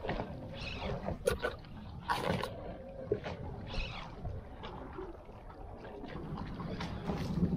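Water slapping and splashing against the hull of a small boat, with irregular splashes and a few sharp knocks over a low rumble.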